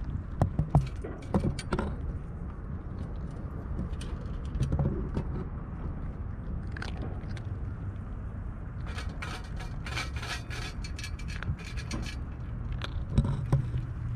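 A cat eating dry kibble from a stainless steel dish: crunching and scraping, with clinks of teeth and food on the metal coming in clusters and a few louder clinks near the start and near the end, over a steady low rumble.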